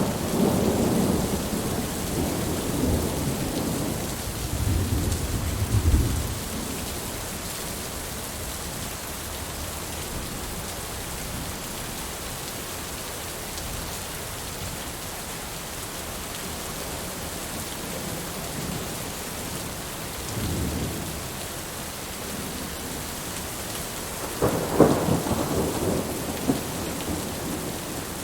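Steady heavy rain with thunder rolling through it: a long rumble over the first six seconds, a shorter one about twenty seconds in, and the loudest clap and rumble near the end.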